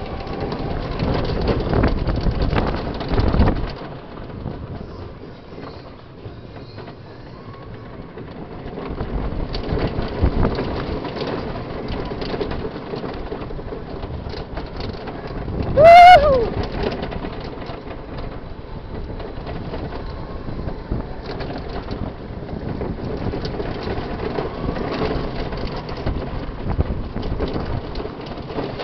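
Suspended family roller coaster train running along its track: a steady rumble and rush of wind, swelling and easing as it goes through the course. About halfway through a rider lets out one short, loud, high whoop, the loudest sound.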